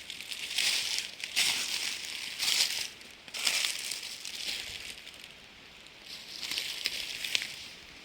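Footsteps crunching through dry leaf litter on a forest floor, about one step a second, softer in the middle.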